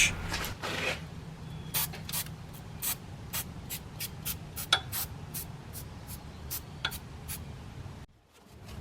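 Aerosol battery terminal cleaner sprayed onto a corroded battery terminal. A hiss lasts about a second, then comes a series of short hissing spurts.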